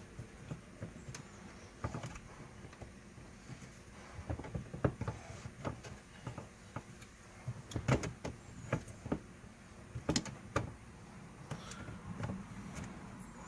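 Scattered, irregular clicks and knocks of hand tools and parts on a car's gear-shifter linkage while its rubber shifter bushings are worked out by hand.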